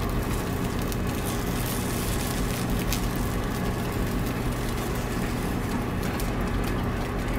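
Eggs frying in a nonstick pan: a steady crackling sizzle, with a faint steady low hum underneath.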